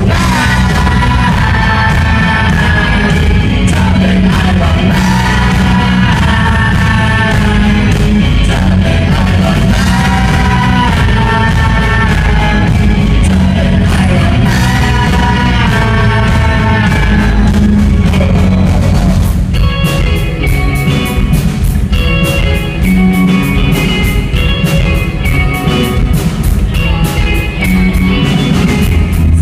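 Live rock band playing loudly: a male singer over electric guitars, bass and drums. The vocals drop out about two-thirds of the way through, leaving an instrumental passage.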